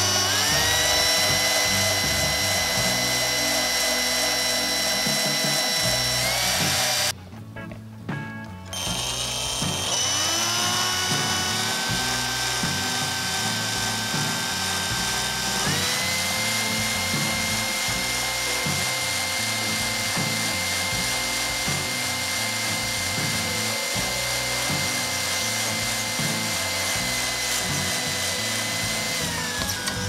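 Small electric drill boring screw holes through a clear plastic sheet, its motor whining and spinning up at the start. It stops for about two seconds a quarter of the way in, starts again, speeds up once more about halfway through, and winds down right at the end.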